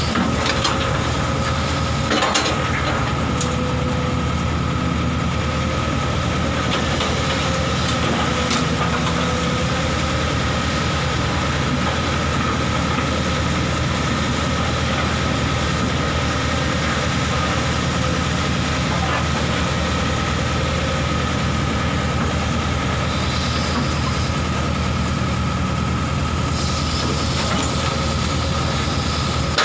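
Excavator's diesel engine running steadily, with a steady high whine over it and a sharp knock about two seconds in.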